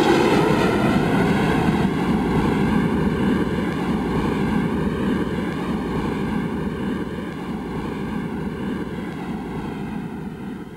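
Jet aircraft passing high overhead, a broad rushing engine noise with a slowly shifting, hollow phasing, fading steadily as it moves away.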